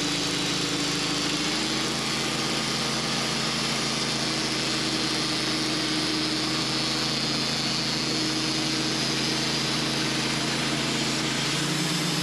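Engine-driven band sawmill running steadily while the blade saws through a hickory log, a steady engine hum under a broad hiss. The engine note shifts slightly about a second and a half in.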